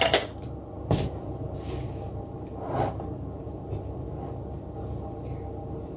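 Spoon clinking against a mixing bowl a couple of times in the first second, then quiet stirring of cake mixture over steady low background noise.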